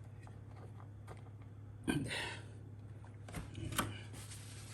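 Light handling noises: scattered clicks, taps and a brief rustle about two seconds in, from working adhesive into a fridge handle mount, over a steady low hum.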